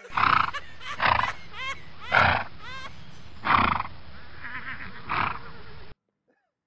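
Horses giving five short, noisy snorts spread over about five seconds, with a few faint high chirps among them; the sound cuts off abruptly near the end.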